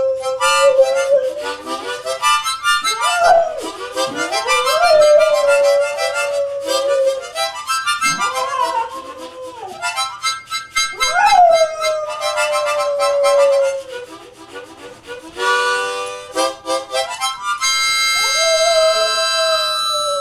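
Boxer dog howling along with a harmonica: long drawn-out howls that several times swoop up sharply and slide slowly back down, over the harmonica's chords.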